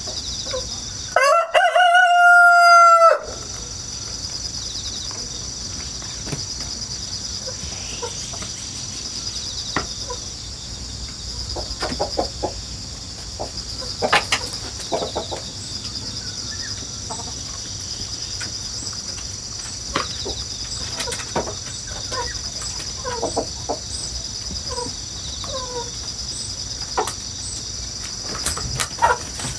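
A rooster crows once, loudly, about a second in, a call of roughly two seconds. Afterwards short clucks come now and then over a steady high chorus of grass insects.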